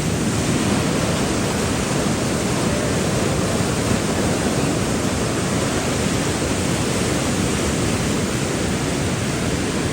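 Steady rush of river rapids: water pouring over rocks in a constant loud hiss.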